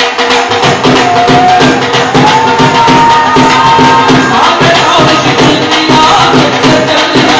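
Bhangra music played loudly: a steady, driving drum and percussion beat, with a high gliding melody coming in about halfway.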